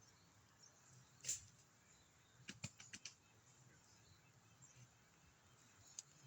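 Near silence with a few faint clicks: one about a second in, a quick run of four or five about two and a half seconds in, and one more near the end.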